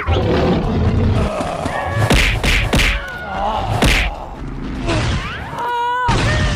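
Action sound effects: a dense run of noise with heavy thwacks and thuds, the hardest hits about two, three and four seconds in, and a short pitched sound near the end.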